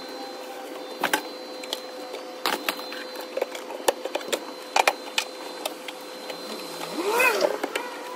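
Sharp knocks and clatter of plastic containers and shelving being handled and set down on a stall counter, some knocks in quick pairs, over a steady hum. A short wavering pitched sound comes near the end.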